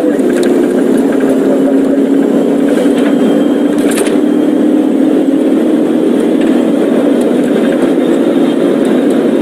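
Car engine and road noise running steadily, with a few light clicks.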